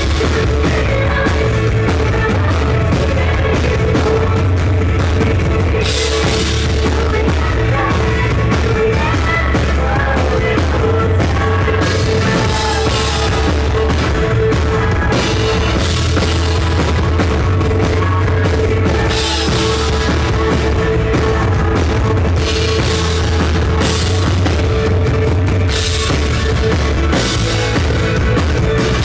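Live rock band playing loudly, with the drum kit prominent under the guitars and bass.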